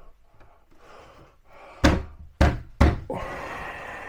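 Three heavy knocks on a wooden kitchen wall cabinet as it is shifted into place on the wall, about half a second apart, then a steady scraping noise for about a second.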